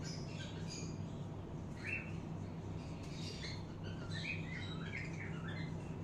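Pet parrots chirping in short calls, once about two seconds in and in a quick run of chirps in the second half, over a steady low hum.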